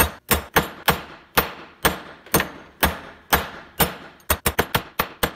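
A ball peen hammer striking steel threaded rods on a bench vise anvil, bashing the threads: sharp metal-on-metal blows about two a second, quickening to rapid blows near the end.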